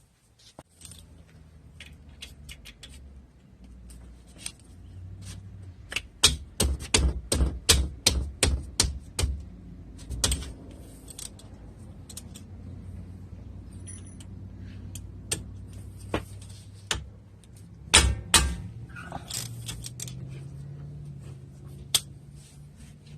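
Metal tools clicking and knocking on car brake parts: a run of quick, sharp clinks about six to ten seconds in and a few more near the end, over a low steady hum.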